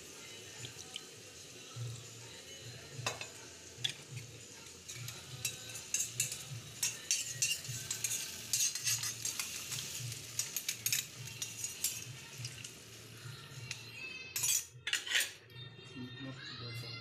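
Flat metal spatula scraping and clinking against a metal kadhai as a thick masala is stirred and fried, with a faint sizzle underneath. The scrapes get busier midway, and two louder knocks come near the end.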